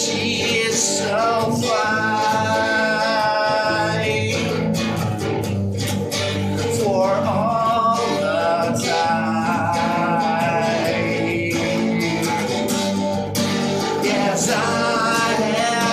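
A man singing long held notes over a guitar he plays himself.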